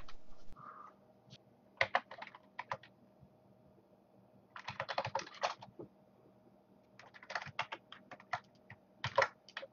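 Typing on a computer keyboard: several short runs of keystroke clicks separated by pauses.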